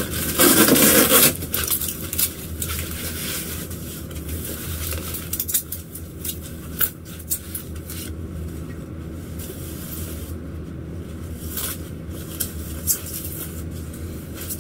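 Cardboard shipping box being torn open, with a loud tearing sound about a second long near the start. After it comes continuous rustling and crinkling of a plastic bag and cardboard being handled as a guitar is drawn out, with scattered small clicks and scrapes.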